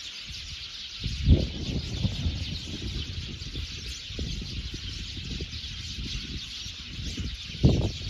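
A flock of small songbirds chattering together, a dense, continuous high-pitched twittering, over a low rumble with a thump about a second in.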